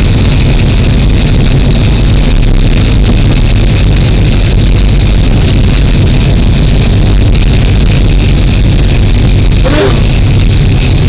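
Diesel locomotive engine running steadily under power, heard from inside the cab as the train moves along the track. A steady low rumble with a constant higher hum, and a brief sharper noise near the end.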